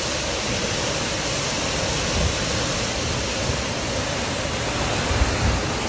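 Heavy downpour of rain, a steady dense hiss, in gusty wind that buffets the microphone with low rumbles about two seconds in and again near the end.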